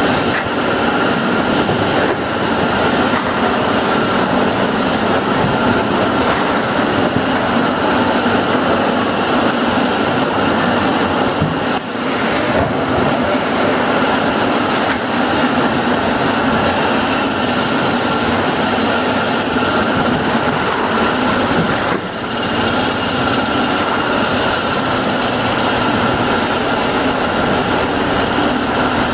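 Automatic bottling and case-packing line running: steady mechanical clatter and hum of conveyors and packing machinery, with a faint steady whine and a few short sharp clicks.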